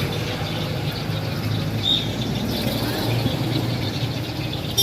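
Street traffic: a steady low engine hum from passing road vehicles, with one short high chirp about two seconds in.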